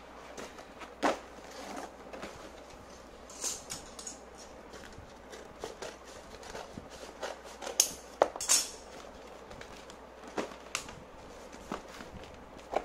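Cardboard being handled and cut with scissors: scattered rustles, scrapes and taps, with the sharpest, brightest sounds a little past the middle.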